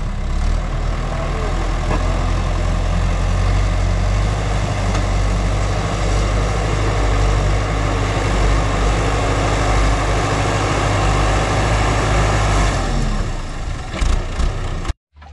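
Farm tractor engine running steadily as the tractor pushes soil with its front blade. It eases slightly near the end, then cuts off abruptly.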